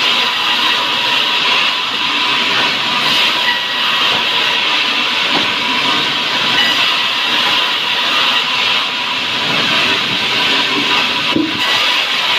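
Electric power tool running steadily while working sengon wood: an even hiss with a constant high whine.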